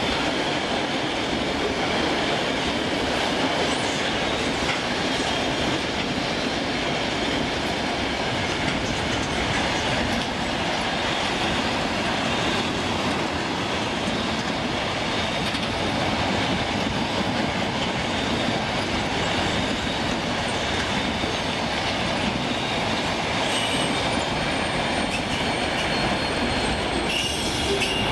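A long freight train of tank cars, flatcars and boxcars rolling past: a steady rumble and rattle of steel wheels on the rails. A few faint high squeals come in near the end.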